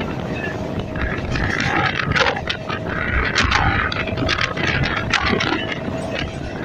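EMU electric local train running at speed, heard from on board: a steady rumble and rush with frequent sharp rattles and clatter, and a faint steady whine underneath.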